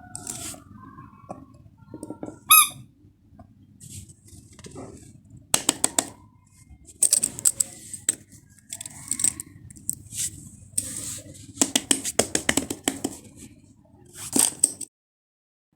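Small plastic fidget toys being handled at close range: scattered clicks, taps and rustling, with a short sharp squeak about two and a half seconds in. The sound cuts out abruptly near the end.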